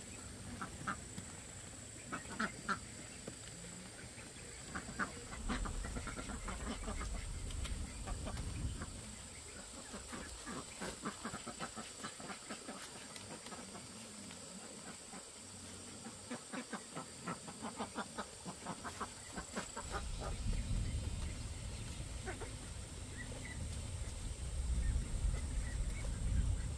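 Domestic ducks quacking. Scattered calls come first, then a fast run of short quacks for several seconds in the middle.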